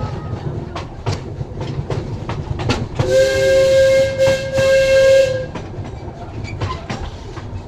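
Miniature passenger train running on its track, wheels clicking irregularly over rail joints over a low rumble. About three seconds in, a train whistle sounds one steady blast lasting about two and a half seconds, then cuts off.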